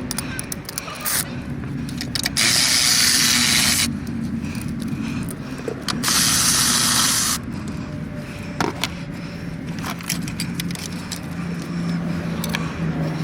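Two hisses, each about a second and a half long and the loudest thing here, over a steady low hum with scattered clicks and knocks.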